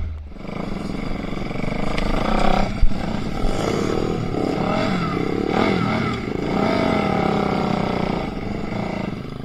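Enduro motorcycle engine being ridden off-road, its pitch rising and falling repeatedly as the throttle is worked, with a sharp knock about three seconds in.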